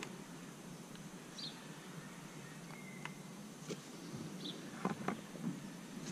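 A few sharp clicks and light rattles as battery charger leads are handled and clipped onto the battery terminals, with faint short high chirps, like birds, every couple of seconds in the background.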